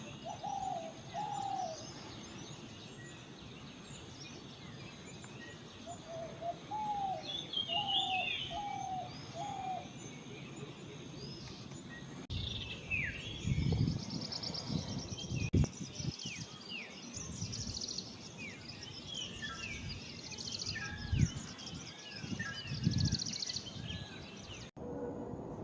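Spotted dove cooing in short phrases of soft, repeated notes, among chirps of other birds and a steady high insect buzz. After about twelve seconds the coos stop, leaving scattered bird chirps and calls with a few low thumps.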